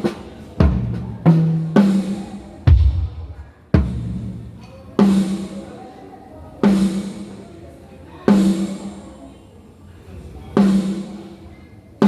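Drum kit being tone-checked: single strikes on the lower drums, each left to ring out, then one drum struck alone, slowly and evenly, about every one and a half to two seconds.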